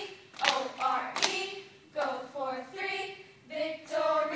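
Cheerleading squad chanting a cheer in unison, with a few sharp hand claps in the first second and a half.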